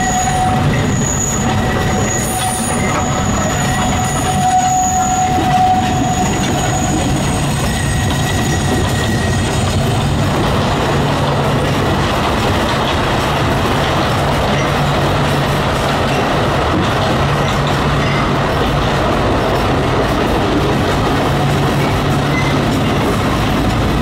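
Alishan Forest Railway train running, heard from inside a carriage. For the first six seconds or so the wheels squeal in thin high tones, then a steady rumble of wheels on track takes over under a low, even hum.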